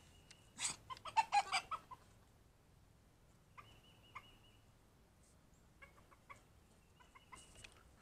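Domestic chickens clucking: a quick run of loud clucks between about half a second and two seconds in, then quieter, scattered calls.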